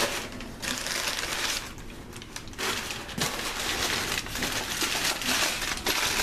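Crumpled brown kraft packing paper being pulled out of a cardboard box and crushed in the hands: dense rustling and crackling, with a short lull about two seconds in.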